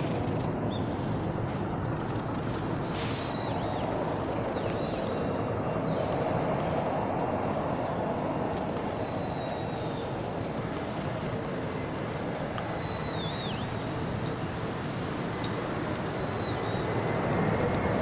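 Cat purring steadily, close to the microphone: a continuous rumble with fine rapid pulsing.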